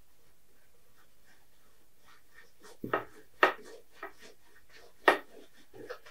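Short scratchy strokes of a brush working oil paint on a stretched canvas: a handful of quick strokes in the second half, two of them louder than the rest.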